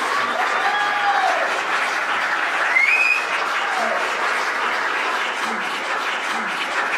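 Theatre audience applauding, steady clapping from a large crowd with a few voices calling out over it.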